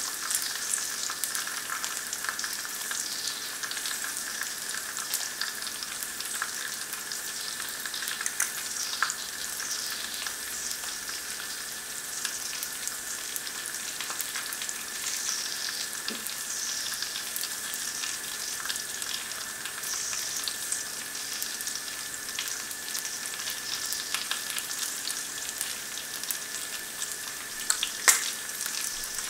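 Bacon, black pudding and eggy bread frying in hot fat in a carbon steel pan: a steady sizzle with many small crackles and spits. One sharper, louder pop comes near the end.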